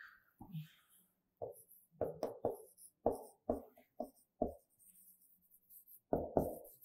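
Writing on a board: about ten short, quick knocks and strokes in small clusters of two or three as the answer to a problem is written out.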